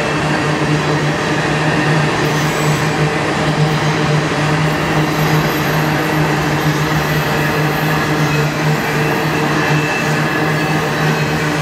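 Empty coal train's hopper cars rolling steadily past on the rails: a continuous, even rumble of wheels on track. A faint high whine joins about halfway through.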